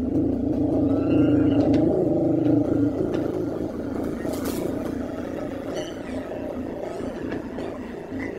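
Potter's wheel spinning with a steady mechanical hum that is loudest in the first few seconds and slowly eases off, with a few faint clicks.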